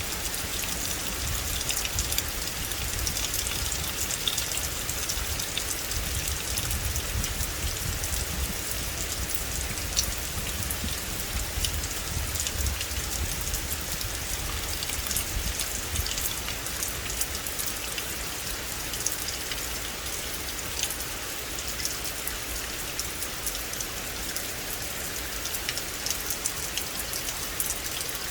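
Steady rain falling on a forest, a continuous hiss with many separate drops ticking sharply on leaves and surfaces.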